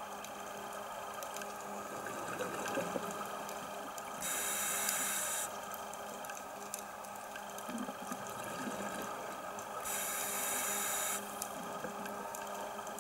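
A scuba diver's regulator exhaling: two rushes of bubbles, each about a second long, about six seconds apart, over a steady underwater hum.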